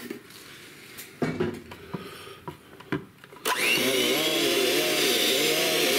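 A few light knocks and clicks of kitchen utensils, then about three and a half seconds in an electric mixer switches on and runs steadily, its motor pitch wavering as it mixes a thin cake batter.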